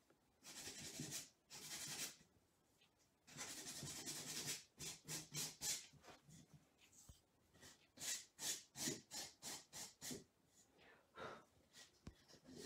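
A small sanding sponge rubbing along the paper-covered edge of a wooden block, sanding off the excess decoupaged scrapbook paper. It makes two longer scrubs, then runs of quick short back-and-forth strokes, about four a second.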